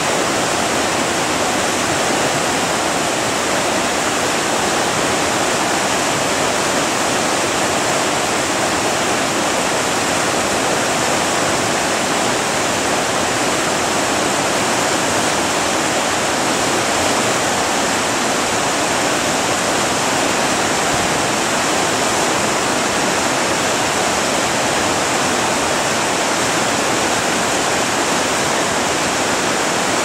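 Fast mountain stream rushing over rocks and small cascades: a loud, steady rush of water that does not change.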